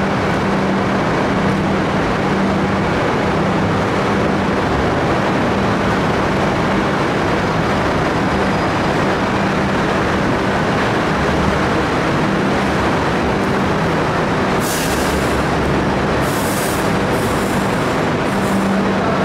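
A moving vehicle running: a steady rumble and hiss under a low, even hum, with a few brief hisses in the last few seconds.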